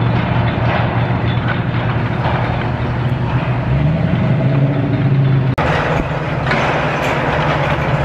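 Diesel engine of heavy demolition machinery running steadily and revving up briefly about four seconds in. The sound breaks off abruptly for an instant about five and a half seconds in, then the engine runs on with a harsher, noisier tone.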